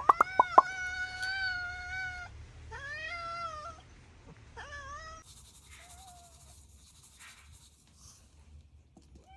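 Domestic cat meowing three times, the first call long and drawn out, the next two shorter, with a few sharp clicks at the very start.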